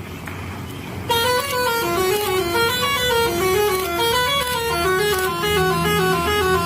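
Basuri musical bus horn playing a quick melody of short stepped notes, starting about a second in, over a steady low engine hum.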